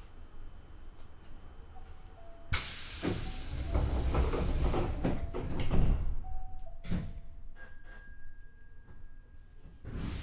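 Compressed-air hiss with knocks from a Hankyu 8000 series commuter train car as its doors close before departure. The hiss starts suddenly and lasts a couple of seconds, and a short two-note falling tone sounds just before it and again after it.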